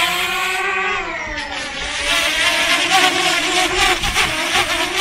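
DJI Mini 2 drone's propellers whining as it lifts off and climbs, the pitch rising near the start and then wavering as the drone holds against gusty wind, with wind noise underneath.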